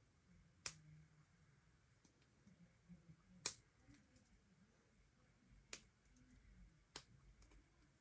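Four sharp clicks spread over several seconds, with a few fainter ticks between them, from handling a Victorinox Explorer Silvertech Swiss Army knife, most likely its blades and tools snapping into place.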